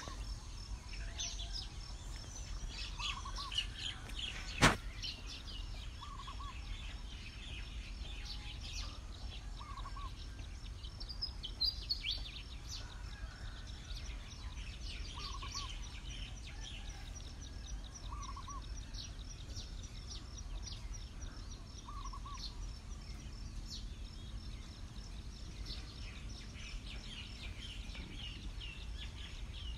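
Many small birds chirping and twittering, with one bird repeating a short call every few seconds, over a steady low rumble. A single sharp click cuts through once, about five seconds in.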